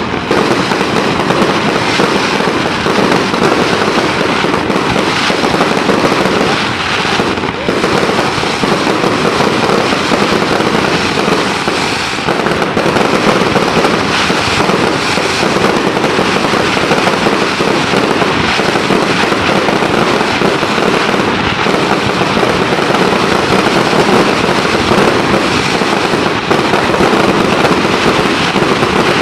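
Fireworks going off in a dense, continuous barrage of crackling bangs, with no let-up.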